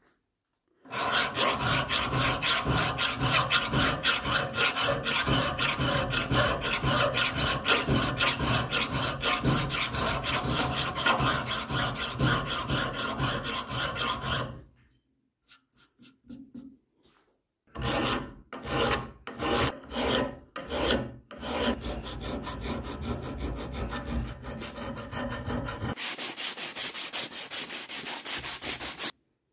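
Metal part of a hand press being hand-filed in a bench vise: a flat file rasping in quick repeated strokes, stopping about halfway, then resuming with a few slower separate strokes and a steady run. Near the end an abrasive cloth strip is pulled back and forth across the metal, giving a finer, brighter rasp.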